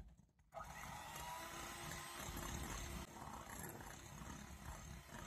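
Electric hand mixer running steadily, its twin wire beaters whipping egg whites towards stiff peaks for meringue; the motor starts about half a second in.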